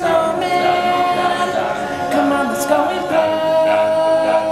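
Male a cappella vocal group singing in close harmony. A high lead voice holds long notes over sustained chords, while the lower voices move beneath it.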